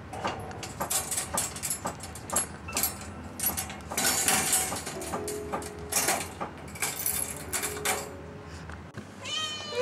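Clicking, rattling and rustling noises around a wire cage, with a few short hissy bursts in the middle. Near the end a kitten begins to meow.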